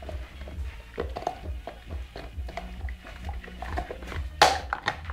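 American Pit Bull Terrier gnawing and crunching on a bone: irregular small clicks and cracks of teeth on bone, with one louder crunch about four seconds in.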